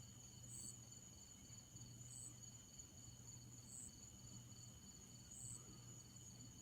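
Near silence with a faint, steady high-pitched night insect chorus, crickets among it, and a short high chirp that repeats about every second and a half.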